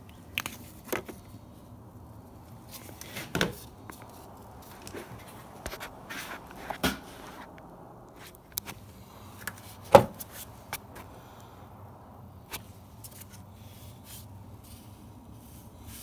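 Irregular sharp knocks and clicks of handling and work on the car, the loudest about ten seconds in, over a steady low hum.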